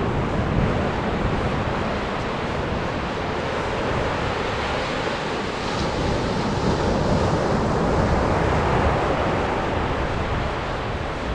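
Atlantic surf breaking and washing up a sandy beach, a steady wash that swells a little past the middle, with wind rumbling on the microphone.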